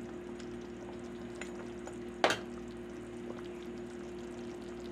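Metal ladle stirring a large stainless-steel pot of simmering goat birria stew, with small scrapes and one sharp clink of metal about two seconds in. A steady low hum runs underneath.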